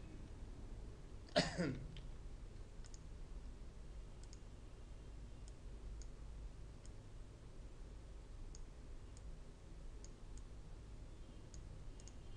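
Computer mouse clicking, a few scattered single clicks, over a steady low microphone hum. About a second and a half in, one short vocal sound from the person at the computer.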